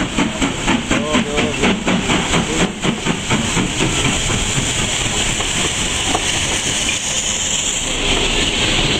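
A Class 5MT steam locomotive working through a station. It gives fast, regular exhaust chuffs for the first few seconds, then a steady rush of steam and running noise as it passes close by, with the hiss growing stronger near the end.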